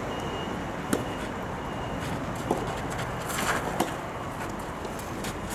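Soft tennis rackets striking the rubber ball, three sharp pops spread over a few seconds, the last one an overhead serve. A steady outdoor background hiss runs underneath.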